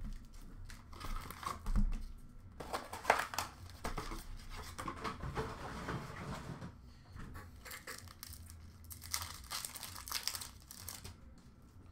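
Cardboard hockey card box being torn open and its foil card packs handled, then a foil pack wrapper crinkling and tearing: irregular rustles and rips.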